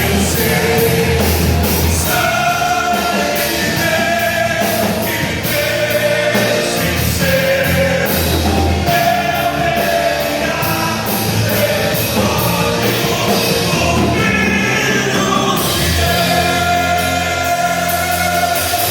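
Gospel worship band playing, with voices singing over a steady bass line and drums with cymbals keeping a regular beat.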